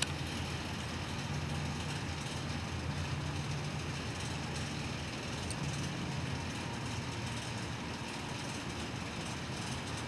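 Steady low rumble with a faint constant hiss, unchanging and without distinct events.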